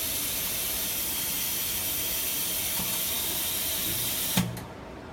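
Steady air hiss from the flex cable laminating machine, cut off by a sharp click a little over four seconds in.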